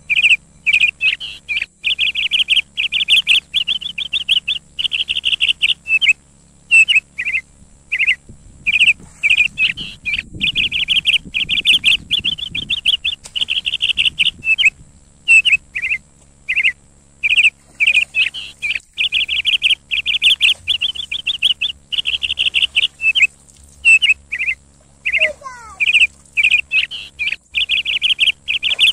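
Birds chirping in quick, near-continuous runs of rapid high chirps, with one falling call near the end.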